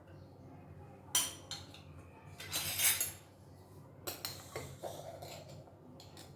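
Metal spoon and steel kitchen vessels clinking and scraping: a sharp clink about a second in, a cluster around two and a half to three seconds, and several more clinks between four and five seconds.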